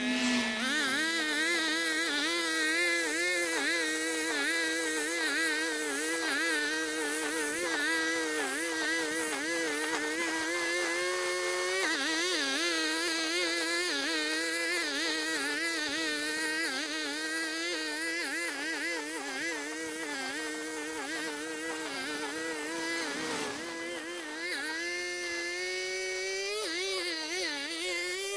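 Stihl FS 90 AV brushcutter engine running at high revs. Its pitch wavers up and down continually as it cuts grass, and dips once about 23 seconds in before picking back up.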